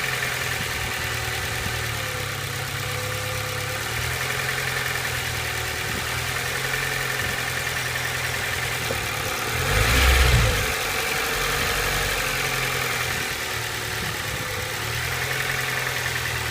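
2003 Acura RSX Type-S 2.0-litre four-cylinder engine idling, blipped once with a short rev about ten seconds in before settling back to idle. The owner fears a knock, after the engine was driven hard on very low oil.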